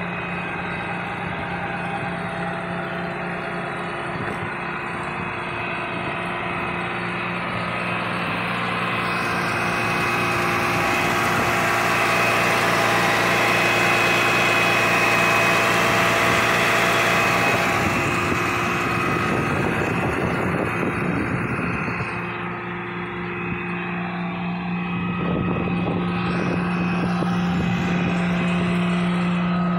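6.7-litre Cummins turbo-diesel in a RAM 5500 idling steadily, growing louder with a rushing hiss through the middle.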